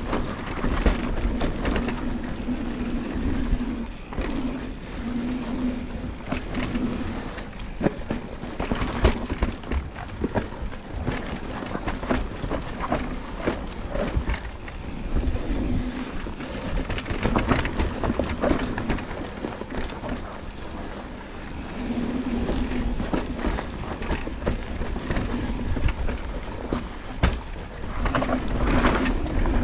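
Mountain bike descending a dirt forest trail: knobby tyres rumbling on soil and roots, the bike rattling and knocking over bumps, with wind buffeting the chest-mounted microphone.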